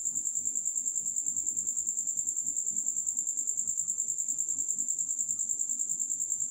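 A cricket trilling steadily: one continuous high note in rapid, even pulses.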